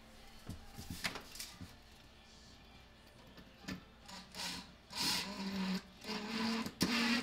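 Cordless drill-driver running in several short bursts into a wooden ceiling joist, making the screw holes to mount a light fixture, after a couple of knocks of the tool against the wood.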